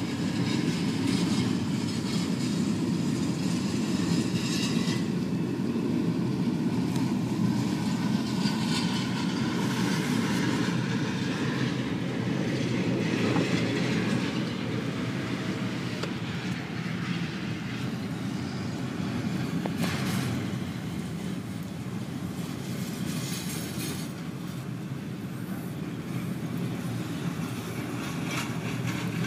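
Union Pacific intermodal freight train's cars rolling past, with a steady low rumble and irregular clicks of wheels over the rail joints, under the hiss of heavy rain.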